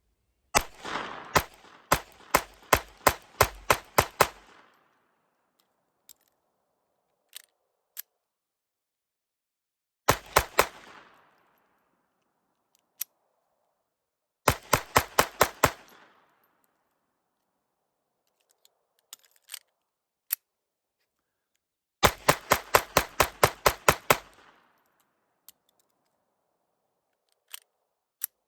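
Ruger LCP II .22 LR pocket pistol firing 40-grain solids in rapid semi-automatic strings: four strings of quick shots, about ten in the first, a short one of a few shots, then two more long strings, separated by pauses with small scattered clicks.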